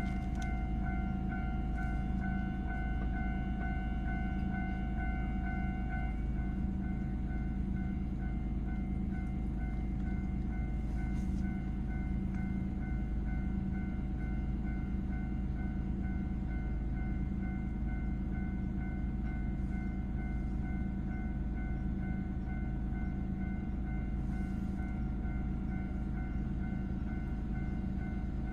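Japanese railway level-crossing warning bell ringing in a steady repeating ding over the continuous rumble of a train passing through the crossing. The bell's lowest tone weakens about six seconds in.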